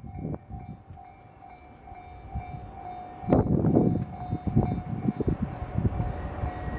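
Japanese level-crossing warning bell ringing steadily. From about three seconds in, a passing train's wheels clatter over the rail joints in a loud irregular run of knocks.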